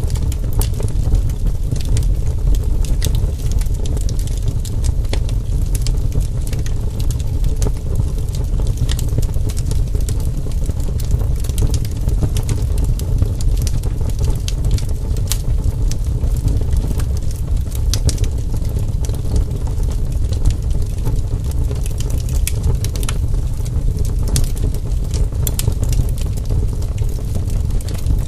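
Campfire crackling: a steady low rumble with frequent sharp pops and snaps.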